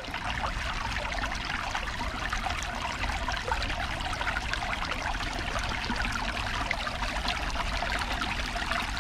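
Shallow stream trickling and babbling over stones, a steady rush of water, over a low rumble.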